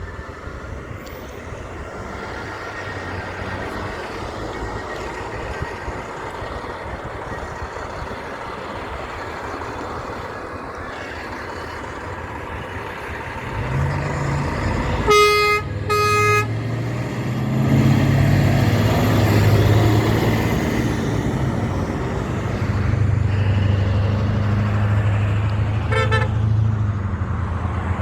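A big truck approaching and passing, sounding two short horn blasts about halfway through, then a low engine drone as it goes by. A shorter, fainter toot comes near the end.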